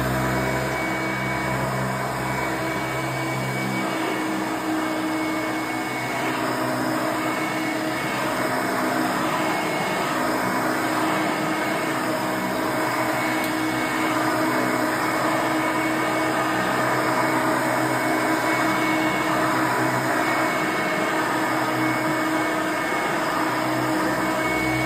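1989 Hoover Elite 350 upright vacuum cleaner running steadily while vacuuming carpet: a constant motor whine over a dense rush of air. A deep low hum underneath drops away about four seconds in and comes back near the end.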